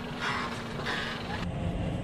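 Heavy tractor at work in the field: a rushing noise that swells twice, then about a second and a half in a change to the steady low run of a Fendt tractor's engine heard from inside the cab.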